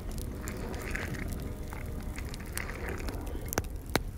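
Wood fire crackling under a large cauldron of boiling pomegranate juice, with scattered sharp pops, two of them strong near the end, over a steady low rumble.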